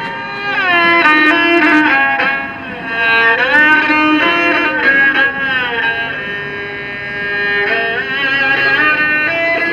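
Erhu (two-string Chinese fiddle) playing a melody on the bow, its notes sliding up and down between held pitches.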